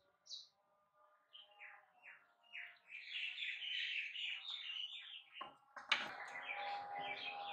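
Small birds chirping faintly in quick, repeated falling calls, with a sharp click a little after halfway through.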